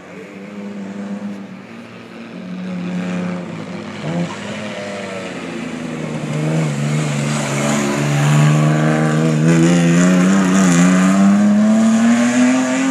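The six-cylinder 1.7-litre engine of a 1934 Riley two-seater racing car, its note dipping about four and six and a half seconds in as it comes through the hairpin. It then accelerates hard away, the pitch climbing steadily and the sound at its loudest over the last five seconds.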